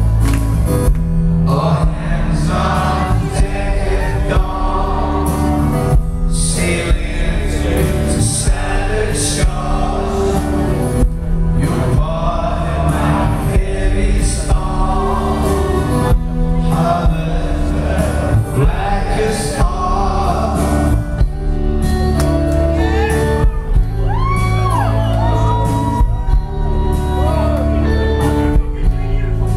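Live rock band playing in a concert hall, heard from within the audience: a man sings over electric guitar, keyboards and bass.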